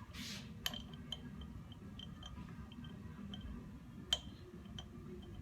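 Small metal parts of a Graco Fireball grease pump clicking and clinking as it is taken apart by hand, with two sharper clinks, one about a second in and one near the end.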